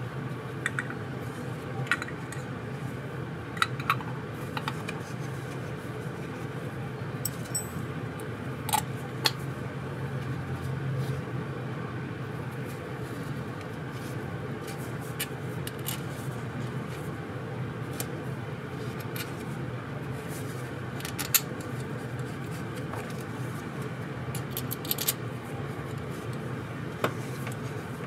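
Metal carburetor parts being handled on a workbench: scattered light clinks and taps of the carburetor body, float bowl and small screws being picked up and set down, over a steady low hum.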